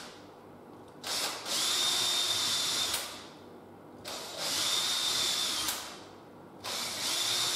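Cordless drill boring pilot holes for the hinge screws into the hardwood edge of a door. It runs in three short bursts of about a second and a half each, with a steady high whine, and pauses between holes.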